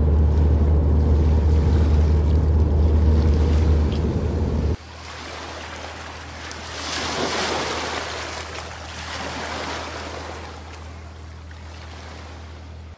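Steady low rumble of a car driving, heard inside the cabin. About five seconds in it cuts to a quieter low hum with a hiss that swells and fades twice.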